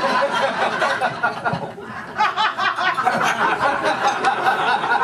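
Audience laughing after a punchline: many people laughing together. The laughter dips briefly and swells again about two seconds in.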